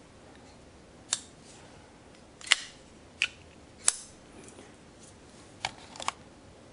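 Sharp metallic clicks of a Boker SD3 folding knife's blade being worked in its handle, opening, closing and snapping against the lock and detent. There are about seven clicks at uneven intervals, the loudest about two and a half seconds in. The knife has slight up-and-down blade play after being taken apart and put back together.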